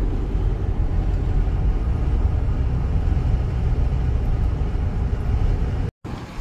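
Steady road and engine rumble inside the cab of a Ford Transit camper van cruising on a highway. It cuts out abruptly for a moment near the end and comes back slightly quieter.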